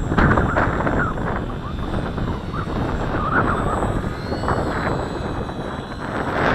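Electric model plane's motor and propeller running, with a faint high whine, under heavy wind rush on the microphone.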